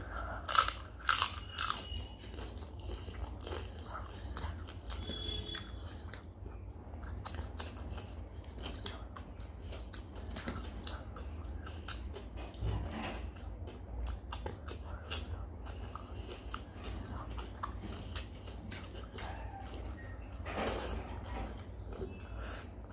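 Close-miked eating: loud crisp crunches as fried papad is bitten in the first couple of seconds, then steady chewing with small wet mouth clicks, and another loud crunch near the end.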